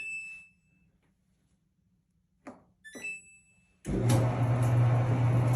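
Samsung electric dryer (DV42H5200EF) being test-started: a short beep at the start and two short button beeps about 2.5 and 3 seconds in, then just before 4 seconds the drum motor starts and runs with a steady low hum and tumbling noise. The drum turning shows the dryer now starts, with its failed idler pulley replaced.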